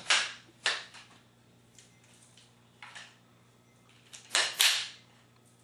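Wooden frame-clamp arms clacking and knocking against each other as they are handled: half a dozen separate sharp knocks, the loudest pair near the end.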